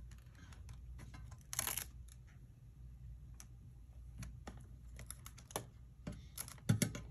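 Quiet handling sounds of a Velcro strap being threaded around a battery in a metal frame and pulled snug: scattered light clicks and taps, with a short scratchy rasp about a second and a half in.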